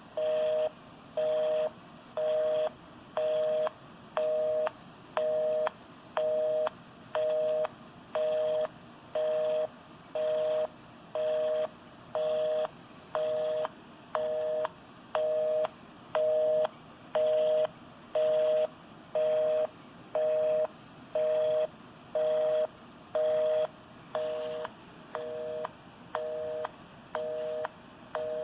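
North American telephone busy signal: a two-tone beep, on and off in even half-second beats at about one beep a second. It signals that the number dialled is engaged.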